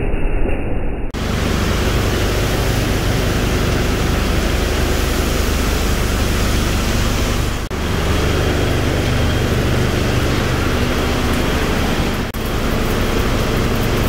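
Steady loud din of an auto shredder residue recovery line running: separator deck and conveyor machinery with a low hum and granulated metal pouring off the deck. The sound changes abruptly about a second in, again near eight seconds and near twelve seconds.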